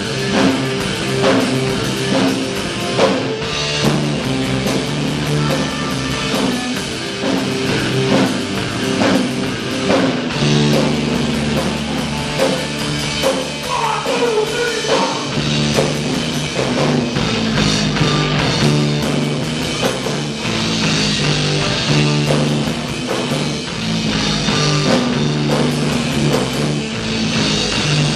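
Live rock band playing, with electric guitar, a low bass line and a drum kit; a sung vocal line comes in briefly about halfway through.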